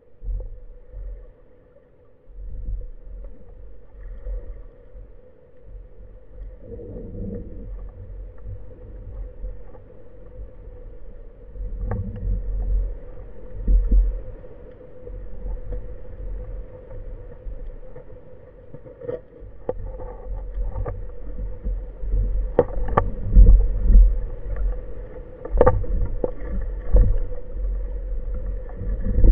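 Underwater sound through an action camera's housing: a constant low rumble of water moving past the housing, with a steady faint hum. Scattered clicks and knocks come more often and louder in the second half.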